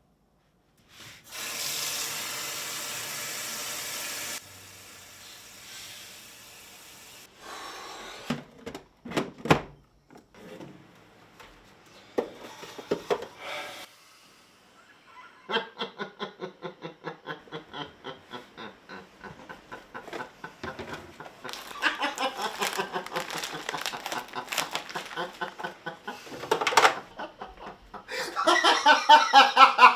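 A burst of hiss, then scattered knocks and short sounds, then a person laughing in a long run of rapid repeated 'ha' pulses through the second half, growing louder near the end.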